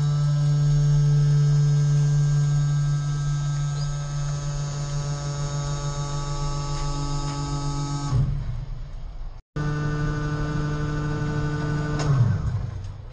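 Compactor container's hydraulic drive running with a steady electric hum; about 8 seconds in it winds down with a falling pitch, then after a brief break runs again at the same hum and winds down once more near the end, with a short knock as it stops.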